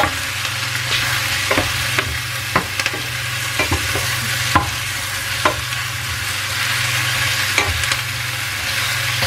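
Sliced button and oyster mushrooms sizzling in oil in a hot stainless-steel frying pan while a wooden spatula stirs them. Irregular knocks and scrapes of the spatula against the pan sound over the steady sizzle, with a steady low hum underneath.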